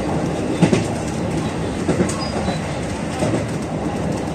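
JR 221 series electric train running at speed, heard from inside the front car: a steady rumble of wheels on rail, with a few sharp clacks as the wheels pass rail joints.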